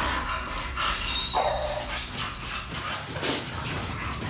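A large dog barking in short, repeated bursts, with some whining in between, as it jumps up at a pet gate. The barking is agitated wariness toward a stranger.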